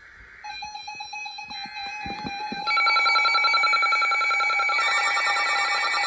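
Emergency Alert System broadcast for a Special Marine Warning. The last burst of the SAME header data ends about half a second in. Then the harsh, steady EAS attention tone starts, grows louder, steps up sharply a little before three seconds in, and gets brighter near five seconds.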